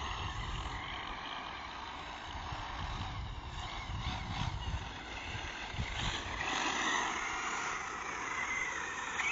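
Brushless motor of a 1/8-scale Losi 8ight RC buggy (Neu 1512 motor on a 5S battery) whining as the buggy is driven, its pitch rising and falling with the throttle, strongest in the second half.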